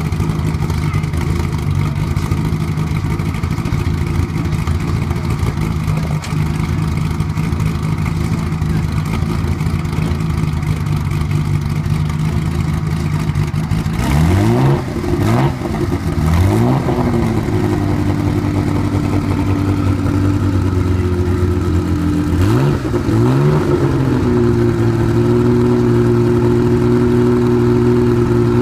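Porsche 911 GT1's twin-turbo flat-six engine idling steadily, then given four quick blips of the throttle, in two pairs, each rising and falling sharply. After each pair it settles back to a steady, higher idle.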